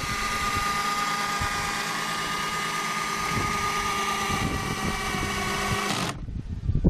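Cordless drill serving as the motor of a homemade electric helm steering, running with a steady whine as it swings the outboard motor round, cutting off about six seconds in.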